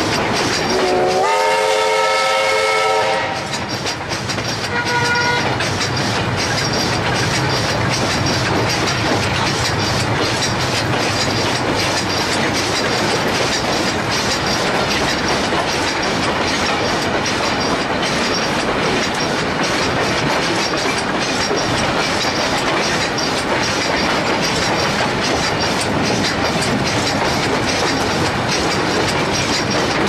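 A steam locomotive whistle gives a long blast about a second in, rising in pitch as it opens, then a shorter second blast around five seconds in. Underneath, steady rolling train noise with the clickety-clack of wheels over the rail joints.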